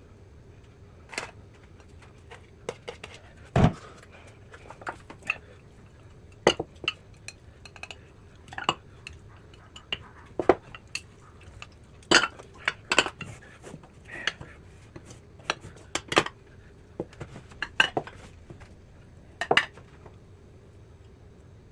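Tableware being handled: irregular clinks and knocks of bowls, plates and chopsticks or spoons, with one heavier knock about three and a half seconds in.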